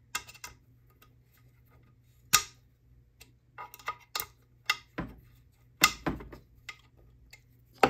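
A steel hex key clicking in and against the metal pinch bolts of a Fox fork's dropout as the bolts are tightened: irregular sharp metallic clicks, the loudest about two seconds in and again near six seconds.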